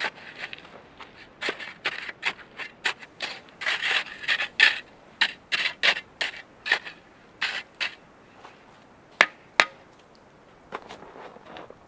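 Metal snow shovel scraping and crunching into packed snow in quick scoops, the snow thrown onto the fire pit to smother the campfire. Two sharp knocks about nine seconds in.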